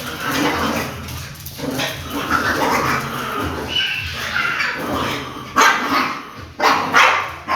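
A dog barking and yipping in a run of calls, with whining between them and a few sharp, loud barks in the last couple of seconds.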